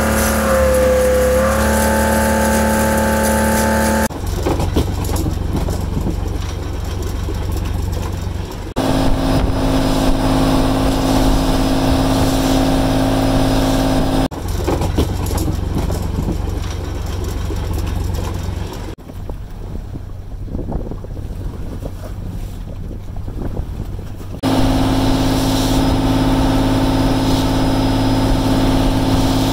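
Fishing boat's engine running steadily in several abruptly cut stretches, its pitch dipping briefly about a second in; one stretch in the later part is quieter, mostly a low rumble.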